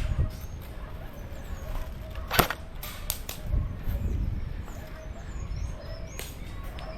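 Airsoft guns firing: a few sharp snaps, the loudest about two and a half seconds in, over a low rumble.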